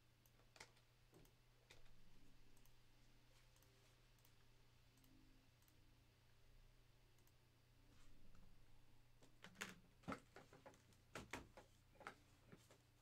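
Near silence broken by scattered clicks of a computer mouse and keyboard, with a quick run of sharper clicks in the second half.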